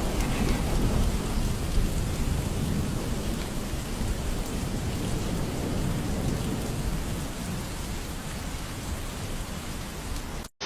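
Heavy downpour: a dense, steady hiss of torrential rain on surfaces with a deep rumble underneath. It cuts off abruptly about half a second before the end.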